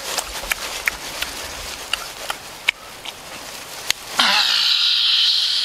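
Close-up eating sounds: lip smacks, chewing and meat tearing from a roasted turkey, many short sharp clicks. About four seconds in, a loud steady high hiss starts and lasts about a second and a half, louder than the eating.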